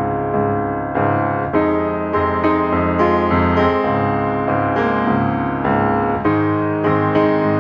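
Background piano music: notes and chords struck one after another at an even pace.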